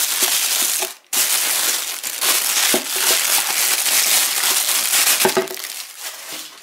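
Thin plastic wrapping crinkling and rustling loudly as it is pulled off a camera lens hood by hand. It cuts off abruptly about a second in, starts again, and dies down near the end.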